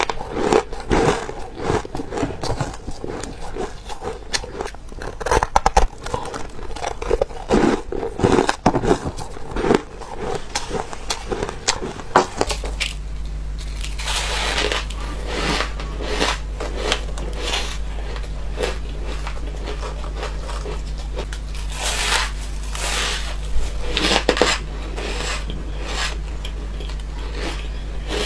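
Crunching of ice blocks coated in dry powder, bitten and chewed close to the microphone, bite after bite in irregular bursts. About halfway through a steady low hum starts and runs on under the crunches.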